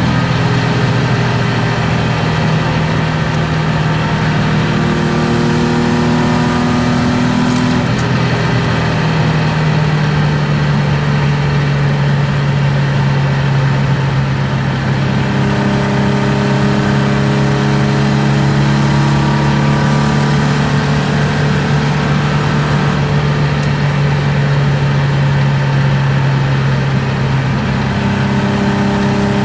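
BMW M50B25 straight-six of an E36 325i, with aftermarket headers and exhaust, heard from inside the cabin pulling steadily at Autobahn speed. The engine note steps to a new pitch about eight seconds in, then holds nearly constant, over a steady hiss of road and wind noise.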